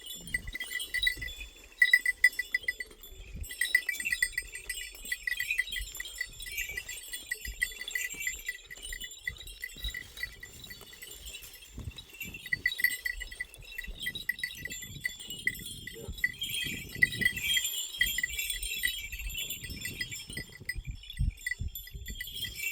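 Bells on a flock of goats and sheep clinking and ringing steadily as the animals move about, with soft low thuds of movement underneath.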